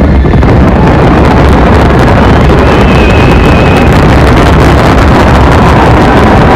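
Dense fireworks barrage: many shells bursting at once in continuous booming and crackling, loud enough to overload the microphone. A faint high whistle rises through it for about a second midway.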